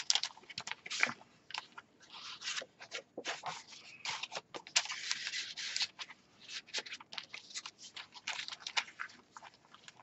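Paper and card pages of a handmade junk journal rustling and crinkling as they are turned and handled, with many short crisp crackles and a longer rustle about halfway through.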